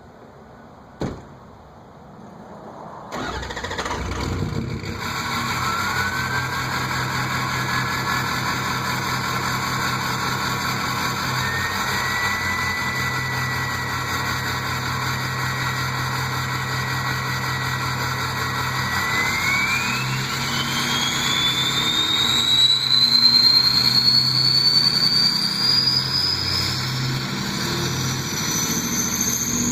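A Ford 6.0 Power Stroke V8 turbo-diesel starts about three seconds in, after a short click, and runs through a 5-inch MBRP turbo-back exhaust. Its turbocharger whistle comes in as a single tone that holds steady for a while. Over the last ten seconds the whistle climbs steadily higher in pitch as the engine is revved and gets louder.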